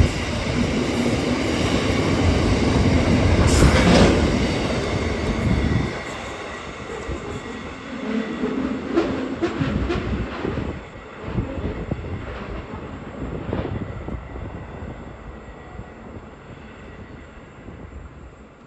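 Freight train wagons rolling past at speed, wheels clacking over the rail joints. Loud for about the first six seconds, then the sound drops and fades away with scattered clacks as the end of the train passes and recedes.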